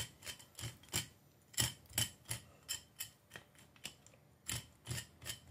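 Kitchen knife tip scraping the bloodline out along the backbone of a gutted grunt (isaki), as a run of short scratchy strokes, roughly two or three a second.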